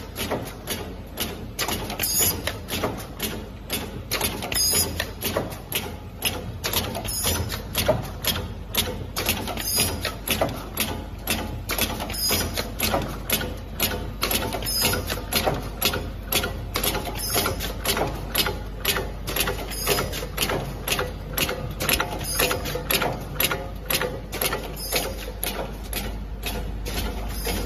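Automatic pneumatic filling machine for strips of plastic ampoules running: air cylinders and indexing parts clacking in a fast, even rhythm, with a short hiss of air about every two and a half seconds.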